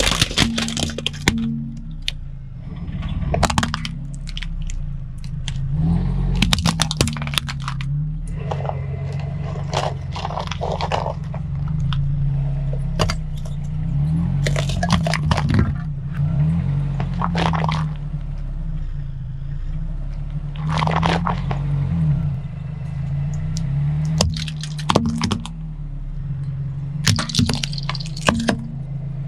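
A car tyre slowly rolls over and crushes objects: a plastic VHS cassette and food tins crack, crunch and crumple in repeated sharp clusters of snaps, over the steady low hum of the car's engine creeping forward.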